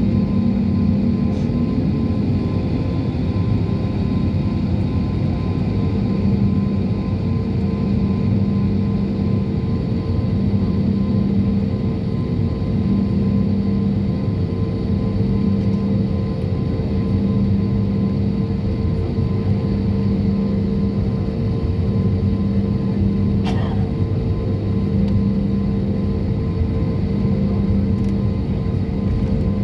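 Airliner engines heard from inside the passenger cabin: a steady low drone with a hum that swells and fades about every two seconds. A single faint click comes near the end.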